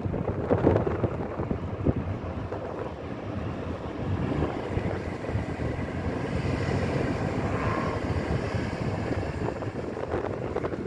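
Wind buffeting the microphone in gusts, over the low running noise of a moving car.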